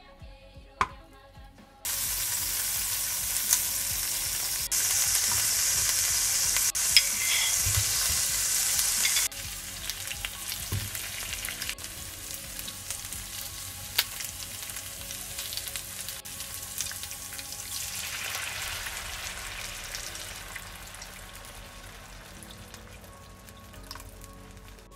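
Onions and tomato paste sizzling in oil in a non-stick frying pan. The sizzle starts suddenly about two seconds in and is loud for several seconds, with abrupt jumps in level. It then drops to a quieter sizzle that fades toward the end.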